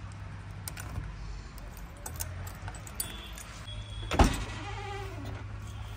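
Handling and clicking at the cab door of a JCB 3DX backhoe loader, with one loud sharp knock on the cab's metal about four seconds in, over a low steady hum.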